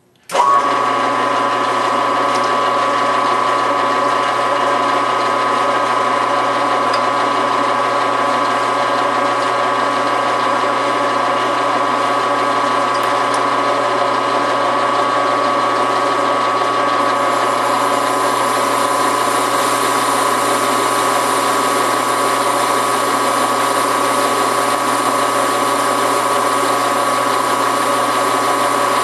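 Metal lathe starting up abruptly about half a second in, then running steadily with a gear whine while a carbide-insert tool takes a cut off the end of a metal spacer bushing to bring it to length. A higher hiss joins about halfway through.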